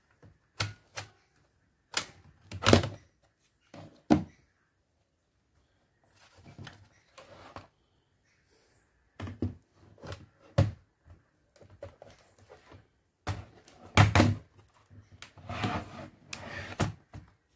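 Plastic case of an Acer Aspire 5349 laptop being handled: an irregular string of knocks and clicks as it is turned over and its battery is unlatched and pulled out. The loudest knocks come two to four seconds in and again past the middle.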